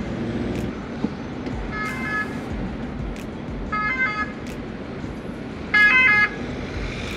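An emergency vehicle's two-tone siren comes through in short bursts about every two seconds, loudest about six seconds in, over the steady low hum of the motorhome in slow traffic.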